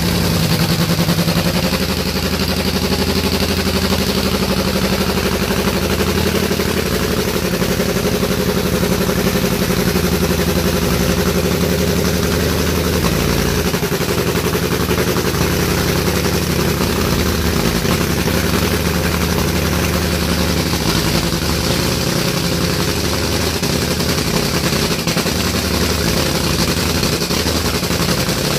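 Nitro Funny Car's supercharged Hemi engine running a pit warm-up at a steady, loud idle.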